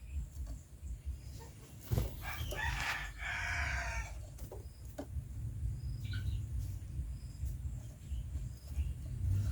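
A single crowing bird call lasting about two seconds, over a steady low rumble.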